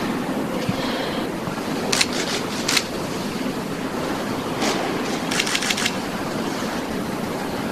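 Indistinct murmur of a roomful of people at table, with camera shutters clicking: single clicks about two, three and four and a half seconds in, then a rapid burst of clicks a little past five seconds.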